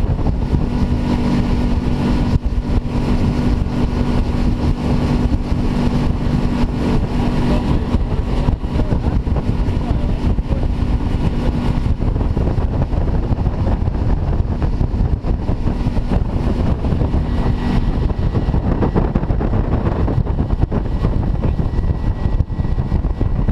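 Boat motor running steadily under heavy rushing wind and water noise. Its engine hum weakens about halfway through and fades further near the end.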